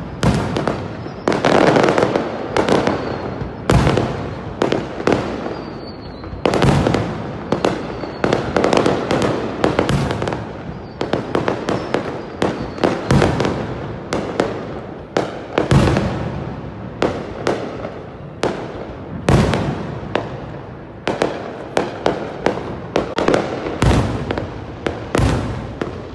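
Fireworks display: sharp bangs in quick, irregular succession, often several a second, with a lingering wash of sound after the bigger bursts.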